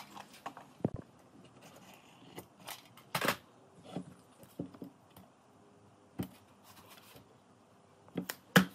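Irregular knocks and clicks of wood and hand tools being handled, with a brief scrape a little past three seconds and a sharper knock near the end.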